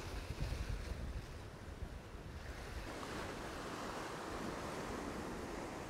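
Ocean swell surging and washing over a rock ledge, a rushing wash that builds about halfway through and keeps going. Wind buffets the microphone with low rumbling gusts in the first second or so.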